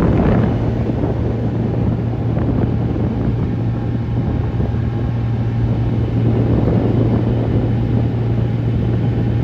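A steady low engine drone with a rushing noise, like wind on the microphone, that cuts off suddenly at the end.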